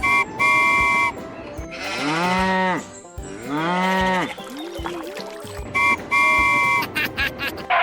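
A cow mooing twice, each call a long rise and fall in pitch, between two rounds of a steady horn-like beep, a short beep followed by a longer one, near the start and again about six seconds in.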